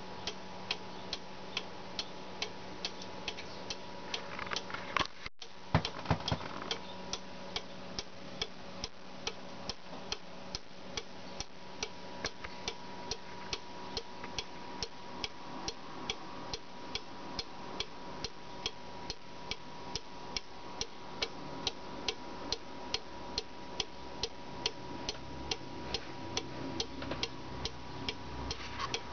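Mayak weight-driven cuckoo clock's pendulum escapement ticking evenly, about three ticks a second, with a few louder knocks about five seconds in.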